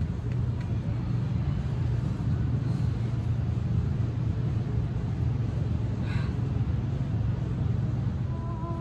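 Steady low rumble of outdoor background noise, with a brief high chirp about six seconds in. A few soft, held melodic music tones come in near the end.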